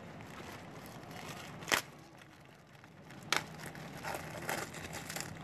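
Plastic wrapping rustling and crinkling as a paint roller cover is pulled out of its sleeve, with two sharp clicks about a second and a half apart.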